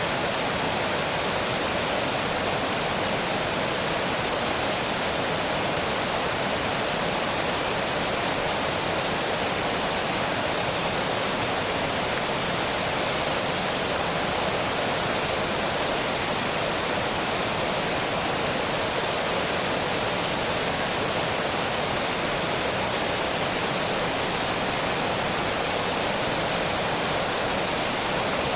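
Water pouring over a small dam: a steady, unbroken rush of falling water.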